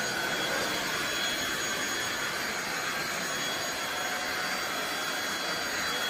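Cordless stick vacuum cleaner running steadily: a high motor whine over a rush of air.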